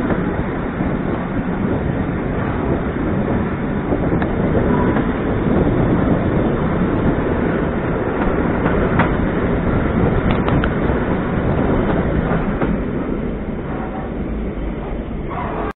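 EN57 electric multiple unit running along the track: a steady rumble of wheels on rails, with a few sharp clicks around the middle.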